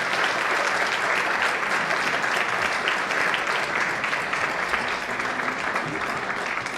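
Audience applauding, a dense patter of many hands clapping that begins to taper off near the end.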